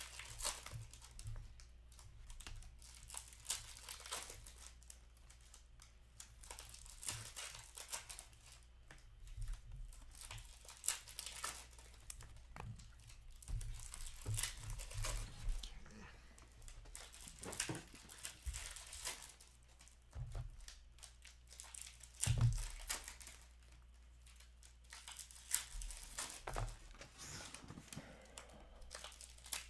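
Foil trading-card pack wrappers crinkling and tearing as hockey card packs are opened, with cards riffled and handled in rapid rustling clicks. A few dull knocks of card stacks against the table, the loudest about three-quarters of the way through.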